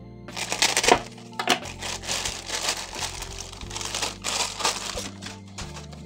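Plastic mailer bag crinkling and crackling as it is handled and opened and a boxed part is pulled out, over quiet background music. The crinkling dies away about a second before the end.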